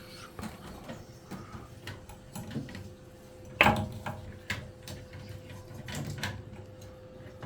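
Scattered clicks and knocks of hands removing the faulty spark generator from an Ideal combi boiler, with one louder knock about three and a half seconds in, over a faint steady hum.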